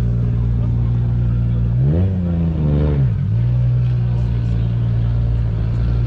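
Car engine idling steadily, given one throttle blip about two seconds in that revs up and drops back to idle within about a second.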